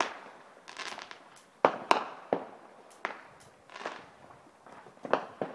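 Fireworks going off: about eight sharp bangs and pops at irregular intervals, some in quick pairs, each trailing off with a short echo.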